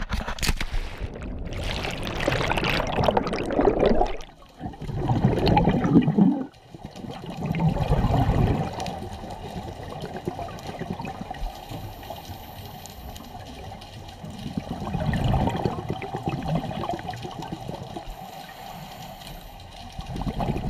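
Water rushing and sloshing in several loud surges, then settling into a steadier, quieter wash with one more swell.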